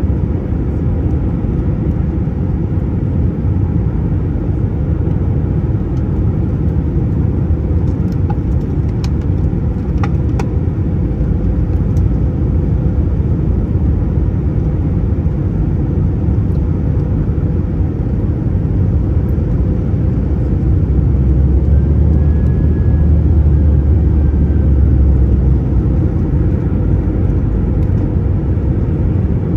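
Airliner jet engine and airflow noise heard inside the cabin by an over-wing window: a steady low rumble that grows a little louder and deeper for about five seconds about three-quarters of the way through.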